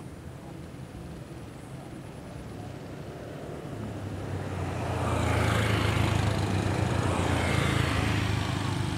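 Honda GX160 163cc single-cylinder engine running steadily as it drives a fishing raft across the water. It is a low, even hum that grows louder from about four seconds in, with a rushing hiss over it.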